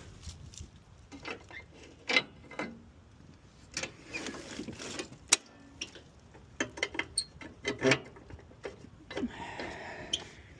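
Irregular metallic clicks, knocks and scraping from hands working around a lawn mower's deck, where a cable is wound around the blade. There are a few sharp knocks, the loudest about five seconds in.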